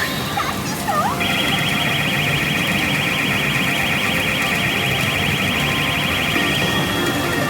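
Pachinko machine's electronic sound effect: a fast, evenly repeating high warbling beep, like an alarm, that starts about a second in and stops shortly before the end, over the machine's steady background noise.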